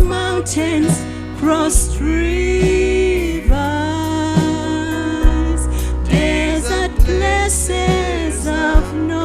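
Gospel worship music with a steady beat, held bass notes and a gliding melody line over them.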